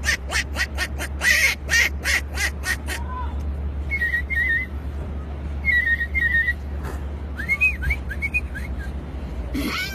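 A man imitating animal sounds with his mouth. First comes a quick run of sharp chirps, about four a second. Then two short warbling bird-like whistles, and near the end a few whistled glides that rise and fall.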